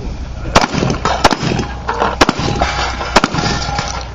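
Four gunshots roughly a second apart from a competitor firing on a 3-gun stage, each a sharp crack, over a steady low rumble.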